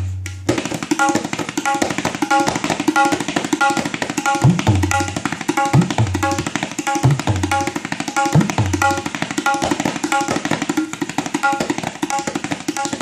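Tabla played in a fast, continuous rhythm that imitates a running train: rapid strokes on the treble drum with a ringing pitched stroke recurring at an even pace, and the bass drum's pitch sliding upward a few times in the middle.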